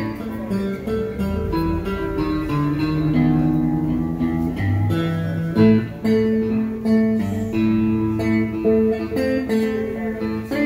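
Solo guitar played live: a slow line of plucked, ringing notes over low bass notes.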